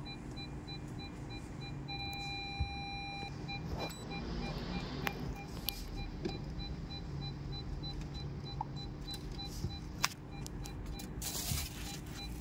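Electronic beeper sounding in short beeps at one steady pitch, repeating evenly, and held as one continuous tone for about a second near two seconds in, over a low steady hum with a few sharp clicks.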